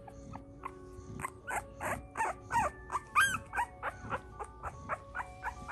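Two-week-old American Bully puppy whimpering, a string of short squeaky cries about two a second that starts about a second in, the loudest a high rising-and-falling squeal a little past the middle.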